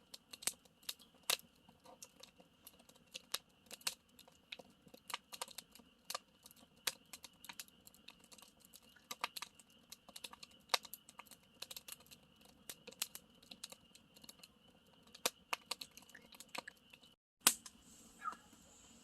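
Campfire crackling: irregular sharp pops and snaps of burning wood over a faint steady hiss, cutting out for a moment near the end.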